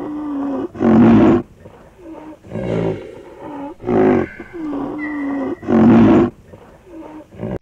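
An animal calling twice over in the same pattern: a steady, drawn-out pitched call, then a louder, harsher call about a second long.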